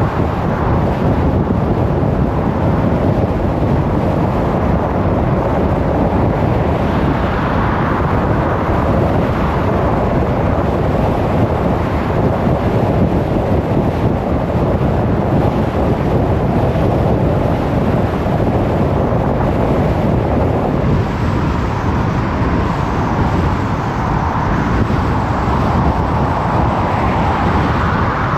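Car driving along a road: a steady rush of tyre and road noise with the engine's low hum, swelling and easing slightly with the road surface and speed.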